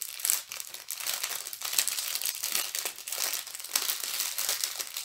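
Plastic packaging of a diamond painting kit crinkling and rustling as it is handled, a continuous crackle of many small clicks.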